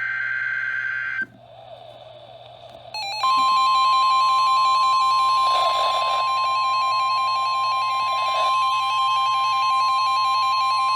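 Emergency Alert System broadcast tones: about a second of the buzzy digital header burst, a short quieter gap, then from about three seconds in the loud attention alarm, a steady high tone over a wavering lower tone, which sounds ahead of a warning message.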